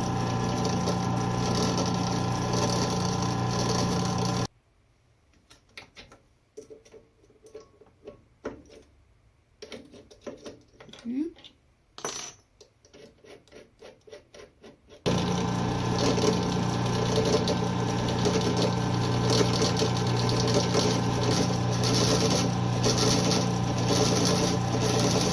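Drill press running while drilling through a Glock 20's polymer frame, a steady motor hum. About four seconds in it stops, leaving scattered clicks and taps from handling the work. About fifteen seconds in the motor starts again and runs steadily.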